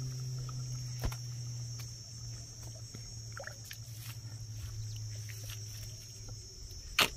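Steady high-pitched drone of insects, with a low steady hum beneath it that fades out near the end. A few faint clicks, and one loud sharp knock just at the end.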